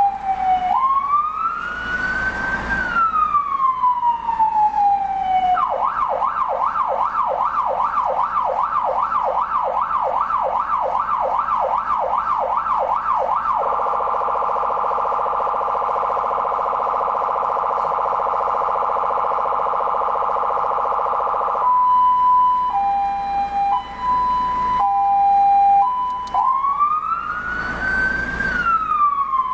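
STBS 150 W electronic siren cycling through its tones: a slow wail rising and falling, then a fast yelp at about four sweeps a second, then a steady harsh tone, then a two-note hi-lo, and the slow wail again near the end.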